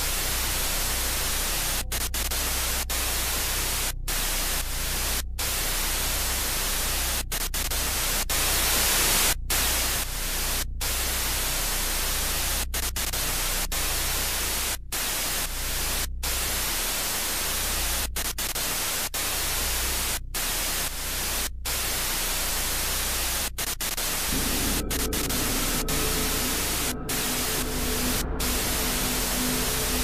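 Loud static hiss from an untuned analog CRT television, broken by brief sudden dropouts every second or two. About three-quarters of the way in, a few steady tones begin to sound under the hiss.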